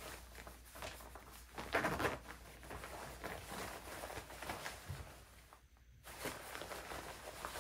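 Rustling of a Gore-Tex nylon shell jacket as hands work its chest pocket zippers, in short scattered rustles with a louder one about two seconds in and a brief near-silent gap about six seconds in.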